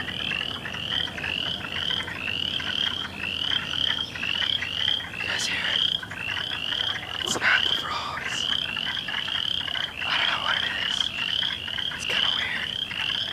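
Frogs calling in a chorus: an unbroken run of short rising chirps, about three a second, with a few sharper calls mixed in.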